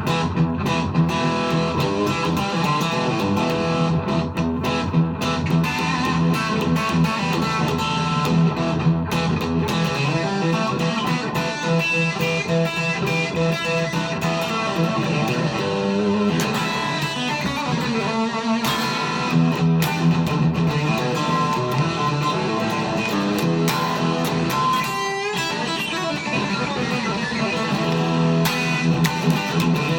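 Electric guitar played without pause, an improvised run of sustained chords and notes.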